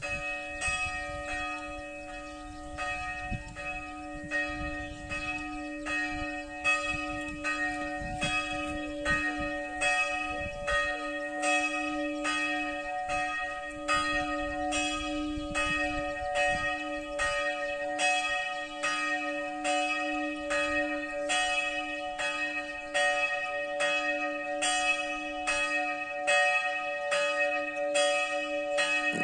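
Church bell ringing for the noon hour, its clapper striking in an even, quick rhythm, with a steady hum ringing on between strikes.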